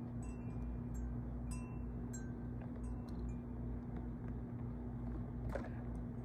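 Faint, sparse tinkling of wind chimes over a steady low hum, with a short swishing noise a little after five seconds in.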